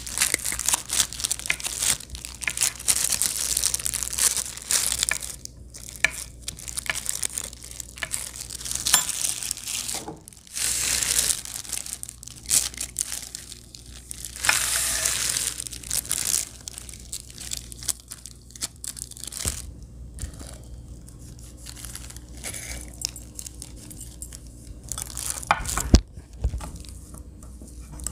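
Crinkling and rustling of disposable plastic gloves and plastic wrap while butter is handled and cut and herbs are dropped into a glass bowl, with a few sharp knocks later on.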